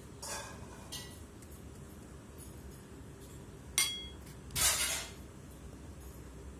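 Light clinks of small hard objects, the clearest a short ringing clink nearly four seconds in, followed by a brief rustle lasting about half a second.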